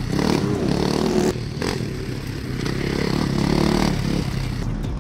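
Motocross dirt bike engine revving up and down under load as it rides the track, its pitch rising and falling. The sound drops and changes abruptly about a second and a half in.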